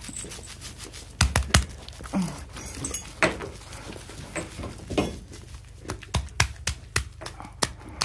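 A hand rubbing a wet newborn calf lying in straw bedding, massaging its chest to get it breathing: irregular rustling with scattered sharp clicks and a few soft thumps.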